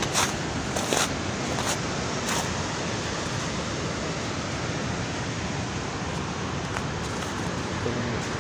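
Steady rushing noise of wind on the microphone, with a few sharp clicks in the first couple of seconds.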